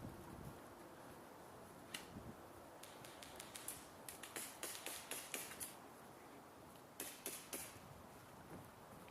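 Faint airsoft gunfire: short runs of sharp pops at about five a second, one starting about three seconds in and another briefly near the end, with a single pop before them.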